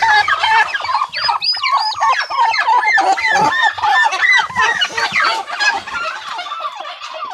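A chorus of newly hatched turkey poults peeping rapidly and constantly in the nest, with the odd lower call among them, thinning out near the end.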